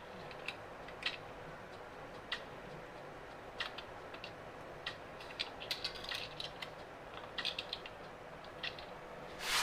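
Faint, scattered light clicks and taps of small hard parts being handled at a motherboard's CPU socket, with a brief rustle near the end.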